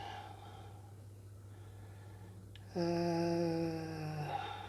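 A man humming one long "hmm" lasting about a second and a half, starting near the middle, its pitch sagging slightly toward the end.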